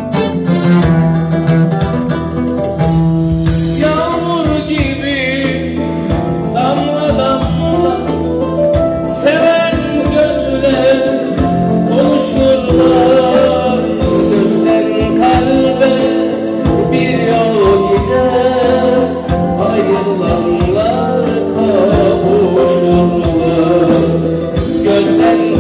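A man sings, accompanied by a plucked oud and an electronic keyboard.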